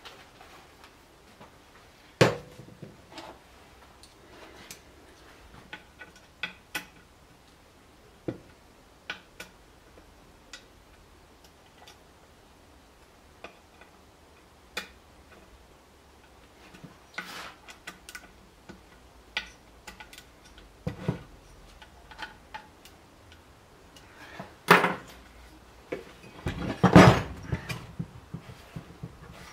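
Scattered clicks, knocks and clatter of metal parts being handled while an Elite Turbo Muin bike trainer is reassembled. There is a sharp knock about two seconds in, and the loudest knocks and clatter come near the end.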